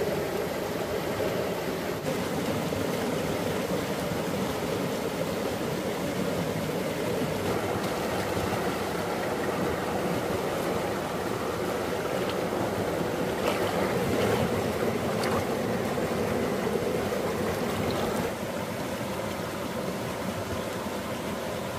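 Rushing water, a steady noise that drops a little about eighteen seconds in, with a few faint ticks partway through.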